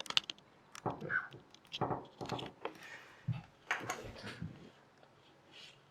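Handling noise from a camera being readjusted on its mount: a run of irregular clicks, knocks and rustles that dies away about four and a half seconds in.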